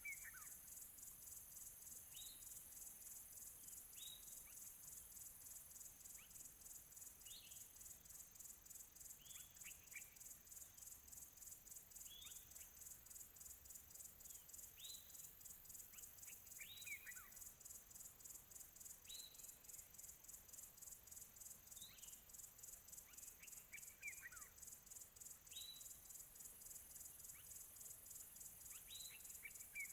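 Faint nature recording: a steady high-pitched chorus of rapidly pulsing insects, typical of crickets, with a bird repeating short, downward-slurred call notes about every two seconds.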